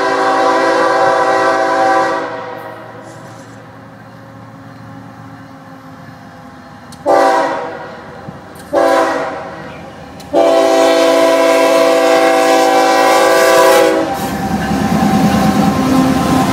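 CSX diesel locomotive's multi-note air horn sounding for a grade crossing. A long blast ends about two seconds in, two short blasts follow, then a long blast of about four seconds. Near the end the locomotive passes close by, its engine rumbling.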